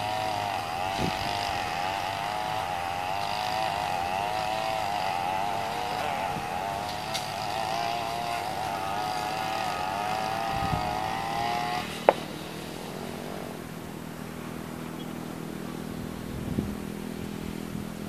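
A small engine running with a quickly wavering pitch, which cuts out with a click about twelve seconds in, leaving a fainter low hum.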